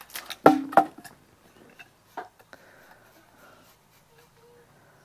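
Acacia firewood being chopped with a blade: two sharp chops close together about half a second in, then a fainter knock about two seconds in.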